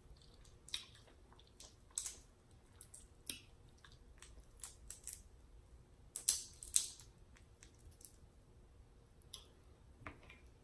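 Snow crab and shrimp shells being cracked and peeled apart by hand: scattered sharp cracks and snaps, the loudest pair about six seconds in.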